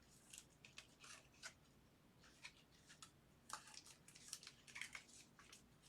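Faint rustling and scraping of trading cards and packaging being handled, a scattered string of short scratchy scrapes.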